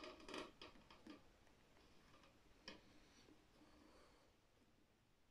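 Faint clicks and taps of small plastic containers handled by hand: several in the first second and one more a little past the middle.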